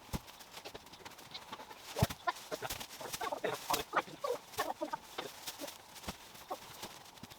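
Chickens clucking in short, irregular calls, mixed with scattered knocks and clicks. The loudest is a single thump about two seconds in.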